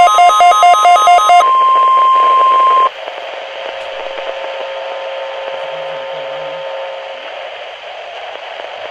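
Emergency alert test signal over NOAA Weather Radio: a rapid, pulsing electronic beeping that switches about a second and a half in to a single steady tone. The tone cuts off abruptly near three seconds, leaving radio static hiss with a faint hum.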